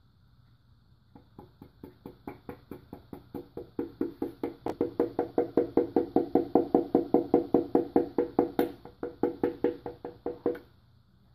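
Rapid, even tapping of a hammer handle on a piston crown, driving a piston with new rings down through a ring compressor into a Toyota 1ZZ-FE cylinder bore. About five knocks a second, each with a short ringing note; they start about a second in, grow louder, and stop shortly before the end.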